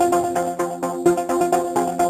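Electronic dance music with a steady beat under sustained synthesizer tones.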